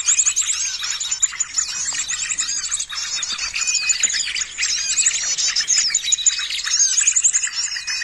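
Bird-lure recording of many small birds chirping and twittering at once, a dense unbroken chorus played from a smartphone speaker to call small birds in.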